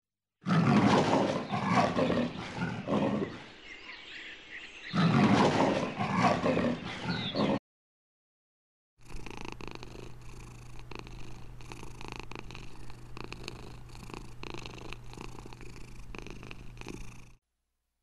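A cheetah calling in two loud, rough bursts, then after a short silence a domestic cat purring steadily.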